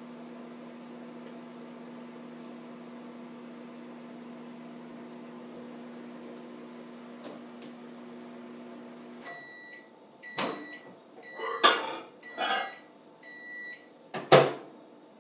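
Microwave oven running with a steady hum that stops about nine seconds in, followed by a series of short high-pitched end-of-cycle beeps. Several sharp knocks and clunks come among the beeps, the loudest near the end.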